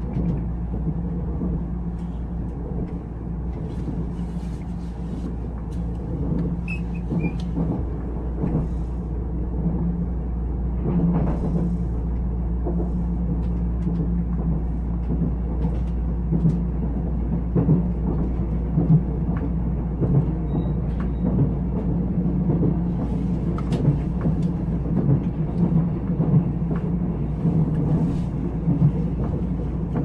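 Interior of a Nuriro passenger train running at speed: a steady low rumble of wheels on the track with a droning hum, and scattered clicks and knocks from the rails.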